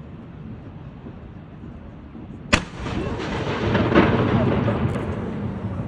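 A single blank round fired from a 105 mm L118 light gun: one sharp blast about two and a half seconds in, followed by a few seconds of loud rolling echo that slowly dies away.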